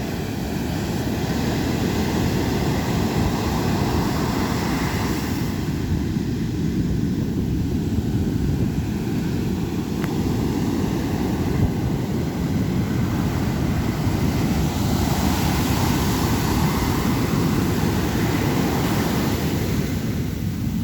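Ocean surf breaking on the shore: a continuous low rumble of waves, with a hissing wash of water swelling up near the start and again about fifteen seconds in.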